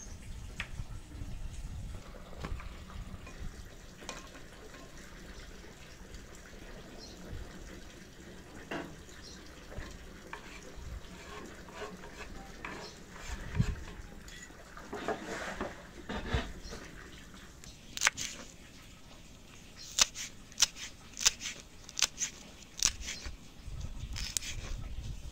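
Kitchen knife slicing green chillies on a wooden cutting board: scattered sharp taps of the blade on the wood, then a louder, quicker run of about a dozen cuts near the end.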